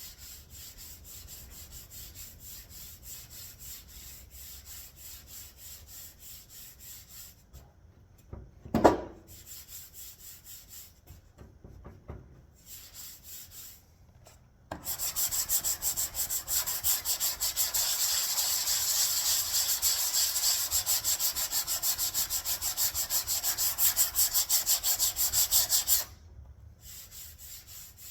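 Hand sanding of hardened body filler on a car panel: quick, rhythmic back-and-forth strokes of abrasive paper, lighter at first, then much louder and harder from about halfway until shortly before the end. One sharp thump about 9 s in.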